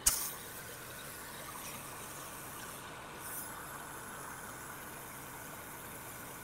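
Pressure washer wand spraying a jet of water onto vinyl house siding: a sharp burst as the spray starts, then a steady hiss. The house is being rinsed from the top down after a chemical soft wash.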